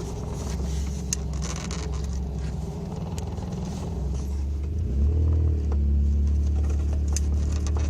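Toyota pickup's engine and exhaust running while driving, heard from inside the cab as a steady low drone that gets louder about five seconds in. The exhaust leak at the header is patched with exhaust wrap. A few light clicks of handling noise sit on top.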